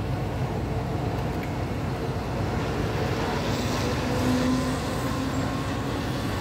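Steady low engine rumble, with a faint humming tone that grows stronger and rises slightly about four seconds in.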